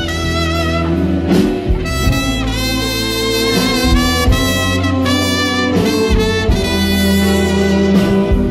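Live band music: a trumpet plays the melody in long, wavering held notes, backed by saxophones and a steady bass.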